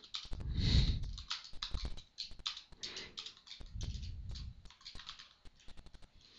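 Computer keyboard typing: quiet, irregular runs of keystrokes.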